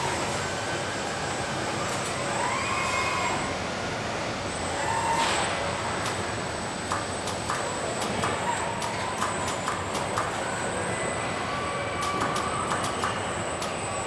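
Automated car body-shop line with industrial welding robots running: steady machinery noise with short rising-and-falling whines as the robots move, and a hiss at the start and again about five seconds in. In the second half come many sharp clicks and clacks from the welding and clamping tooling.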